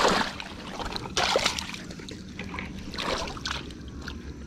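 Water splashing and sloshing around a wader's legs in shallow water, in a few surges with each leg movement: at the start, about a second in, and again about three seconds in.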